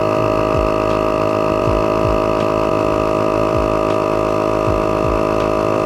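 Slime portable 12-volt tire inflator running steadily as it pumps a patched tire toward its 37 psi setting: a constant mechanical whine with a low pulse about twice a second.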